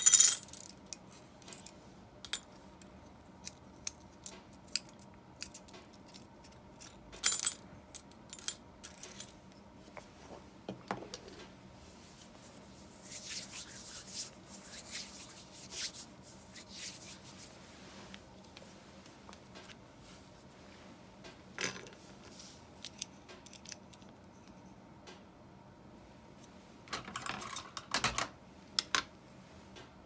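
Small metal parts of an Abu Garcia Ambassadeur 1500C baitcasting reel clinking and clicking as they are handled and set down on a wooden table and into a small metal parts cup. A sharp clink comes at the start, more clinks about seven to eight seconds in, softer handling noise in the middle, and a cluster of clinks near the end.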